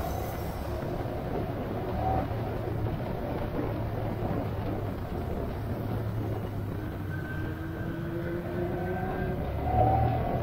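A vehicle on the move, with steady engine and road noise and a faint tone that rises slowly in pitch in the second half.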